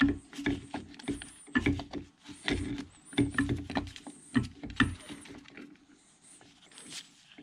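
Cast-iron power downfeed gear cluster being rocked loose and lifted out of a Bridgeport mill's quill housing: irregular metal clunks, clicks and scrapes of the bracket and gears against the housing, which die down after about five seconds.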